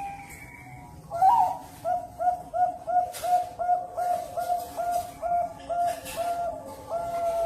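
Zebra dove (perkutut) cooing: after a louder opening note, a quick run of short, evenly spaced coo notes, about three a second, ending in one longer held note.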